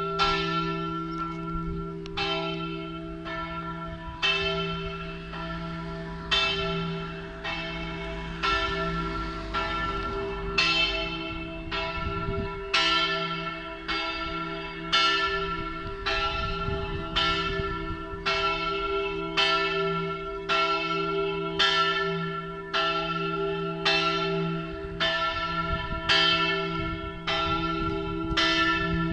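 The large bronze church bell, cast by Giovanni Battista De Poli in 1921 and the biggest of a three-bell E3 peal, swings full circle in the Friulian style. Its clapper strikes about once a second, each stroke ringing on under the next. This ringing is the last call to a funeral Mass.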